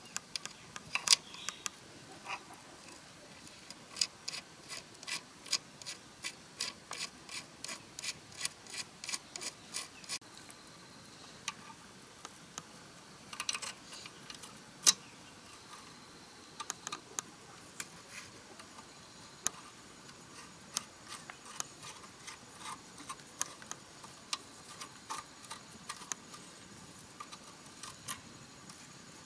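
Hand tool clicking against the metal fittings of a small single-cylinder diesel engine: a run of light, evenly spaced clicks, about two to three a second, then scattered clicks and clinks.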